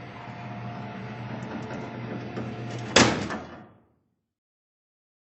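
Steady car-cabin hum, then a car door slams shut once about three seconds in, and the sound fades out to silence.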